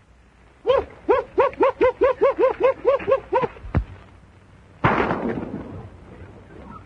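A quick run of about a dozen short, high yelps. About a second later comes a single revolver shot that rings on and fades.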